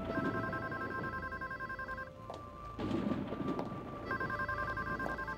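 House telephone ringing twice, each ring a fast trill of two tones lasting about two seconds, the second ring starting about four seconds in.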